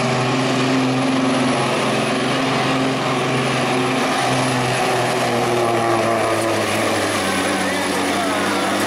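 Semi truck's diesel engine running hard under load while dragging a weight-transfer sled, a loud steady drone. It dips briefly about four seconds in, and its pitch sags lower over the last few seconds as the engine lugs down.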